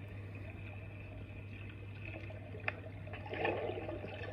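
Underwater camera audio from a manta ray swim, played back through a tablet's speaker: a steady low hum under faint muffled water sounds, with a short click and a brief burble of water or bubbles about three seconds in.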